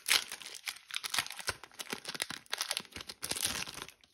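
A Pokémon TCG booster pack's foil wrapper being torn open and crinkled in the hands. It makes a dense run of crackles and rips that stops abruptly near the end.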